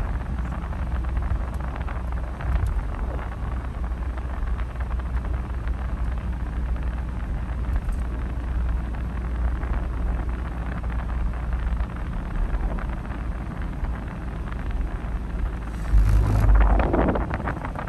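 Steady road and tyre noise with a low rumble, heard from inside a car cabin at expressway speed. It swells louder for about a second near the end as a truck passes close alongside.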